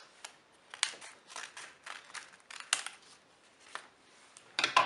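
Scissors snipping through folded sheets of coloured paper in a run of short, crisp cuts, about two or three a second, with a louder clatter near the end.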